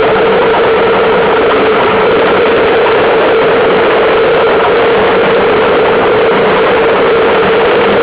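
Loud, steady rush of wind buffeting the microphone of a camera mounted on a Solo sailing dinghy in strong wind, mixed with water rushing along the hull, with a steady drone running underneath.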